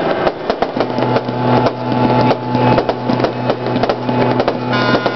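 Fireworks crackling: a dense, rapid stream of small sharp pops over a steady low hum. Near the end several steady high tones join in.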